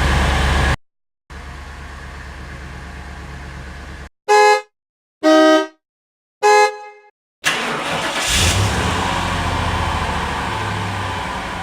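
A string of separate car sound effects: a steady low hum, then three short car-horn honks about a second apart, then a car engine starting up and running, fading out near the end.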